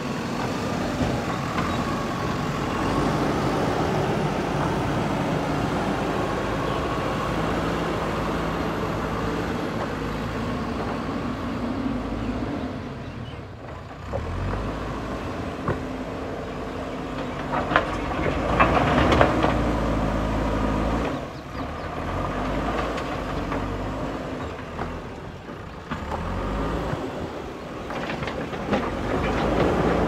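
JCB backhoe loader's diesel engine running under working load, its speed rising and falling as it works. A few sharp knocks come through about two-thirds of the way in, as the loader bucket pushes stones.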